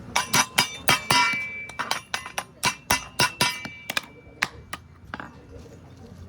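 A quick, uneven run of hammer blows, some with a short metallic ring, easing off after about four seconds.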